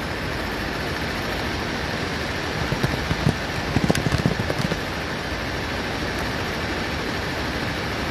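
Steady hiss of background noise picked up by the microphone, a noisy audio feed, with a brief cluster of crackles and knocks about three to five seconds in.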